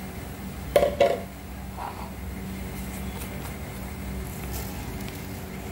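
Two quick knocks of a stainless-steel mixer-grinder jar against a stone countertop about a second in, then a softer knock; a steady low hum runs underneath.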